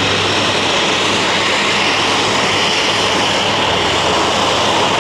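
Boeing 737-800's twin CFM56-7B turbofan engines at taxi power as the airliner taxis in: a loud, steady jet rush with a hiss high up and a low hum underneath.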